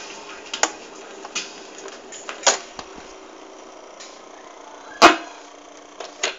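Surface noise of a 45 rpm vinyl single playing on past the end of the song: a steady hiss and crackle from the stylus, broken by several sharp pops, the loudest about five seconds in.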